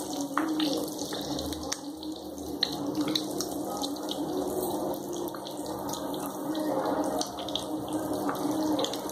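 Oil sizzling steadily around halved boiled eggs frying in masala in a steel kadai, with many small pops and crackles.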